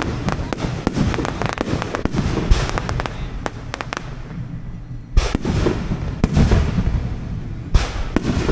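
Fireworks going off: dense crackling and popping over low booms. The crackling thins out about four seconds in, then a loud bang a little after five seconds starts it up again.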